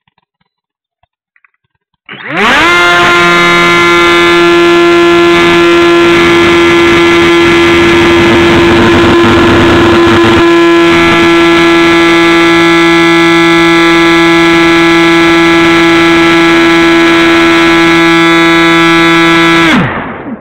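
Stryker F27C RC flying wing's electric motor and propeller, heard from a camera strapped to the plane. About two seconds in it throttles up with a quickly rising whine to a loud, steady drone held at full power. Near the end it winds down in pitch and cuts off.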